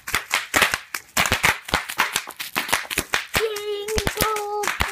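Bubble wrap popping under a child's feet: a quick, irregular run of sharp pops.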